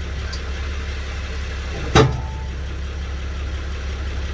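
2010 Mercedes Sprinter van idling steadily, with one sharp clunk about two seconds in as the driveline takes up on shifting into reverse: the rear differential clunk the owner is demonstrating.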